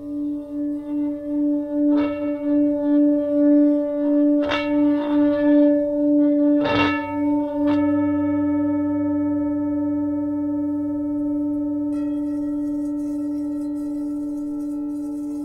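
Large Himalayan singing bowl rimmed with a wooden mallet, its deep hum pulsing in an even wobble, with several struck notes ringing out over it. The hum then rings on steadily, and about three-quarters of the way through a smaller bowl is struck, adding a higher, wavering tone.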